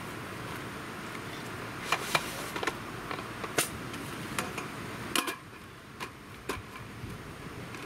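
A folding camp table's metal frame and slatted top clicking and knocking as it is unfolded and set up: about eight sharp clicks and light knocks, starting about two seconds in, over a steady background hiss that drops about five seconds in.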